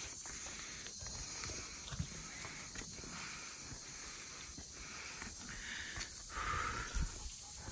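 Footsteps scuffing and crunching on a dry-leaf-covered dirt trail, irregular and uneven, over a steady high hiss, with a louder rustle and thump near the end.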